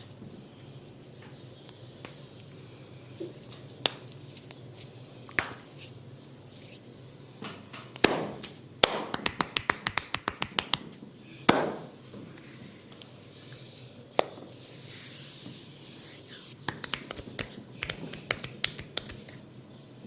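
Hands at work in a barber's head massage: scattered sharp snaps and taps, with a quick run of about six snaps a second in the middle, framed by two louder cracks. Brief rubbing and scratching on skin and hair follows, then more taps near the end.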